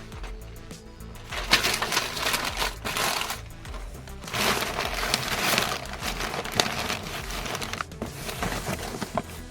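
Packing material being crumpled and handled in several noisy bursts, over background music with a steady beat.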